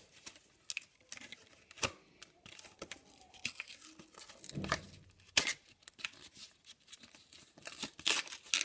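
Toy packaging being handled and torn open by hand, a folded paper leaflet pulled out of it: intermittent crinkling and rustling with scattered sharp clicks.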